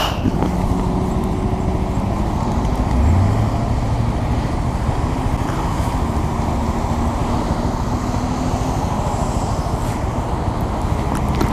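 2017 Honda Grom's small single-cylinder engine running under way, with steady road noise. About three seconds in, the engine note rises briefly as it picks up revs.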